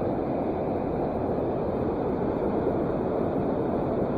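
Steady rushing of the Boise River, running high.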